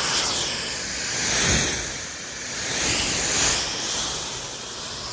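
Pressure washer spraying through an X-Jet nozzle: a loud, steady water hiss that swells and fades several times.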